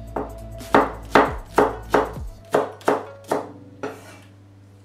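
Chinese cleaver chopping spring onion on a wooden cutting board: a run of about nine sharp knocks, roughly two a second, the last ones fainter.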